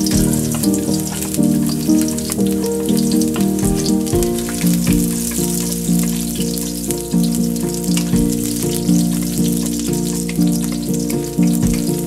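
Chopped garlic frying in hot oil in a wok, a steady crackling sizzle as it is stirred with a wooden spatula. Background music of sustained notes plays over it.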